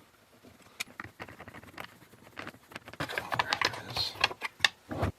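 Hand disassembly of a Stihl MS460 chainsaw: scattered clicks, taps and rattles of tools and plastic parts, growing busier with scraping about three seconds in and ending with a sharp knock.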